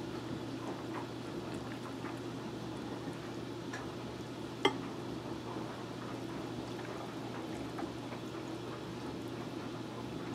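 Beef broth pouring steadily from a glass measuring cup into quart canning jars filled with meat and vegetables. A single sharp click about halfway through.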